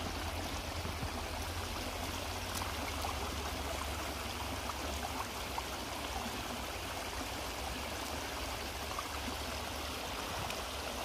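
Small woodland stream running steadily over stones, with a steady low rumble underneath.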